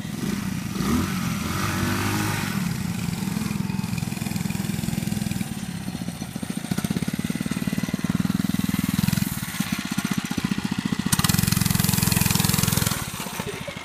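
Small single-cylinder four-stroke mini bike engines running, a Lifan 110 pit bike and a Monster Moto 80cc. About eleven seconds in, one engine revs hard for a couple of seconds as the Monster Moto lifts its front wheel into a wheelie, then drops back.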